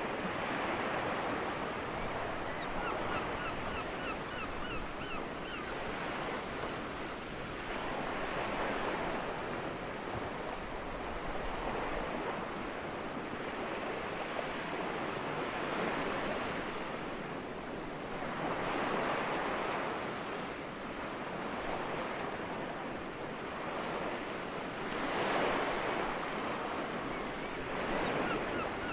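Soft sea waves coming ashore, the wash swelling and ebbing every three to four seconds. Seagulls call faintly in quick repeated notes a few seconds in and again near the end.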